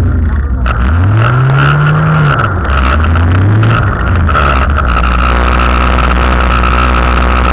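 Dirt-track race car's engine heard from inside the car, revving up and easing off twice through a corner, then holding a steady note from about five seconds in. Clicks and rattles sound over the first half.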